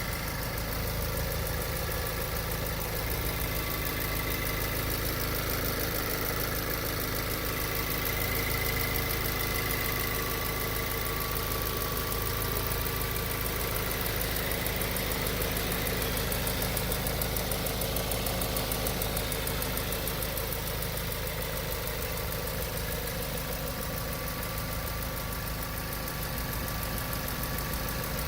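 2016 Volkswagen Golf GTI (Mk7) 2.0-litre turbocharged four-cylinder engine idling with a rapid ticking from the engine bay. The owner reports the tick has set no fault codes.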